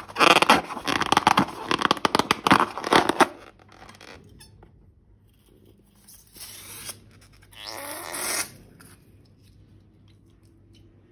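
Slime being handled: dense wet crackling and squishing for about three seconds, then two short squelches near six and eight seconds in.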